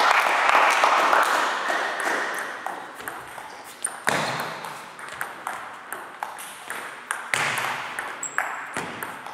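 Table tennis rally: the celluloid ball clicking off the players' bats and the table, roughly two sharp pings a second from about four seconds in. Before that, a loud wash of noise fades away over the first few seconds.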